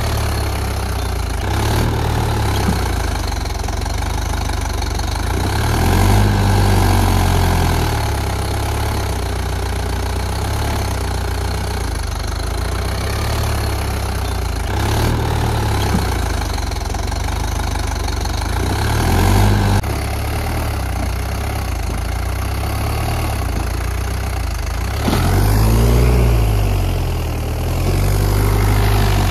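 Swaraj 843 tractor's diesel engine running, with the revs rising and falling three times, about six seconds in, near twenty seconds and near the end, as the tractor works to get out of deep mud.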